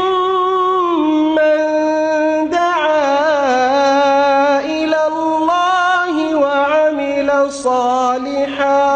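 A man reciting the Qur'an in melodic tajwid style, drawing out long held notes with wavering, ornamented turns in pitch.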